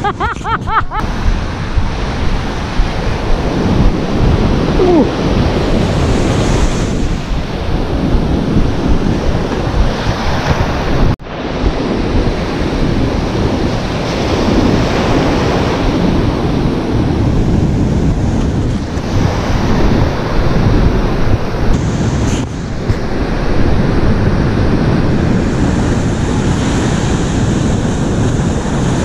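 Ocean surf breaking and washing on the beach, with wind buffeting the microphone; a dense, steady rushing that briefly cuts out about eleven seconds in.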